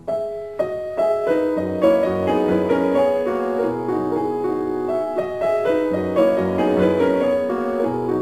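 Background piano music: a new piece starts suddenly with a struck note, then a melody over chords and low held bass notes.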